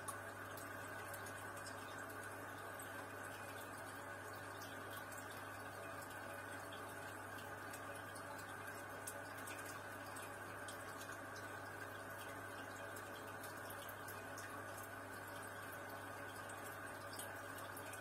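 Aquarium air-driven sponge filters and airstone bubbling: a steady stream of air bubbles rising and trickling at the water surface with fine popping ticks, over a constant low hum.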